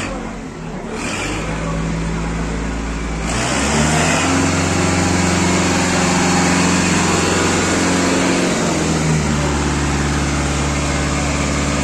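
Diesel tractor engine running. It is revved up about three and a half seconds in, holds there, then drops back near nine seconds to a steady lower speed.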